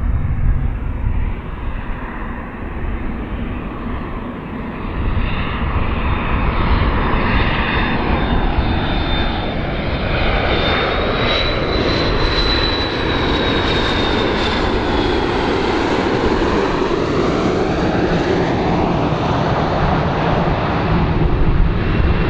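McDonnell Douglas MD-82 airliner's two rear-mounted Pratt & Whitney JT8D turbofans on landing approach. A steady jet roar and rumble builds after the first few seconds, with a high engine whine that rises and then falls in pitch about halfway through as the jet passes close by.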